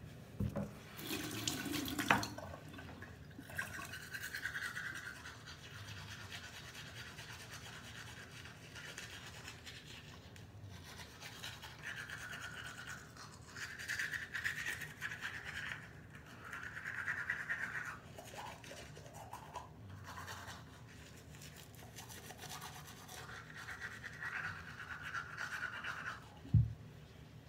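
Manual toothbrush scrubbing teeth in spells of a second or two, with short pauses between. A brief knock comes near the end.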